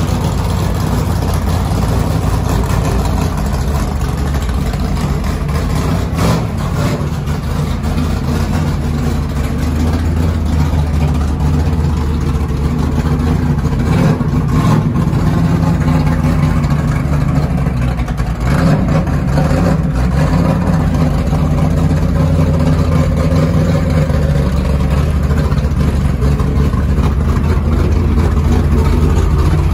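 Dirt-track race car engine running at a steady idle, with a brief rise in level about 19 seconds in.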